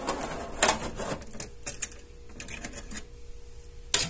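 Metal air fryer basket knocking and clicking against the wire racks of an oven-style air fryer as it is slid in and its clip-on handle is unhooked. It makes a string of sharp clicks and clatters, loudest about half a second in, with another knock near the end.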